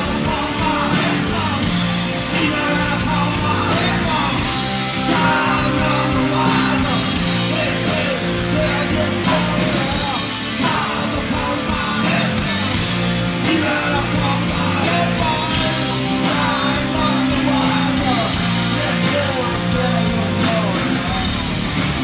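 Live rock band playing loud and steady: electric guitars and keyboards over bass and drums, with a bending lead line on top.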